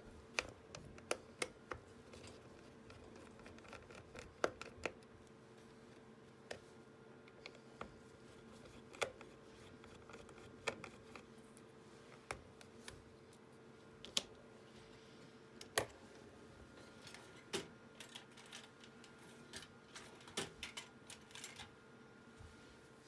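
Small screwdriver clicks and taps while the screws holding the hard drive in a MacBook Pro A1286 are taken out: irregular sharp clicks every second or so, over a faint steady hum.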